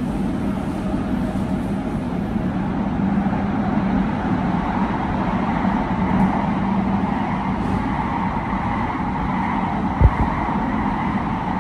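Cabin noise of an Elizabeth line Class 345 train running: a steady rumble and hum from the wheels and motors, with a single low thump about ten seconds in.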